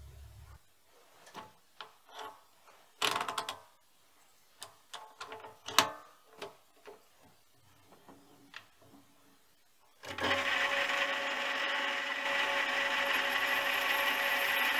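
Scattered metal clicks and knocks as the tool in a mini lathe's quick-change toolpost is handled. About ten seconds in, the mini lathe starts and runs steadily with a whine while a square carbide insert chamfers the inside of a brass tube.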